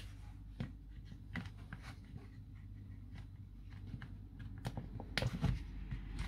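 Light plastic clicks and knocks of a Milwaukee M18 battery's top casing being fitted and pressed down onto its base, more frequent and louder near the end; the damaged lid does not seat securely. A faint steady low hum runs underneath.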